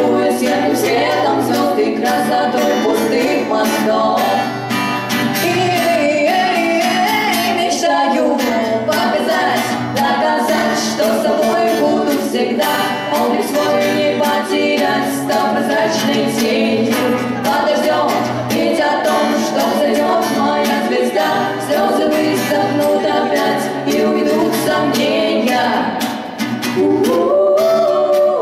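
Live song by female voices singing together over a strummed acoustic guitar, heard through the hall's amplification.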